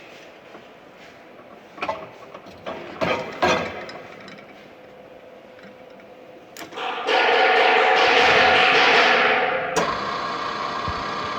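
A few knocks, then a drilling machine starts about seven seconds in and runs steadily with a hissing whir as it bores into steel, easing a little in level near the end.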